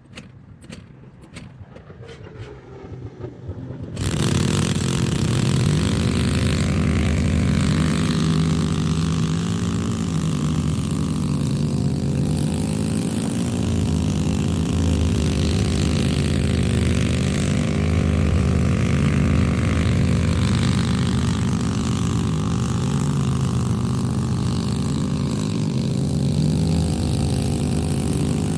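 A few faint clicks, then from about four seconds in a loud engine running steadily, its pitch wavering slightly up and down.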